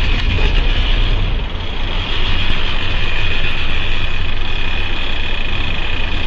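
Sportfishing boat's engines running with a steady rush of wind and water, and a steady high-pitched whine over it that dips briefly about a second and a half in.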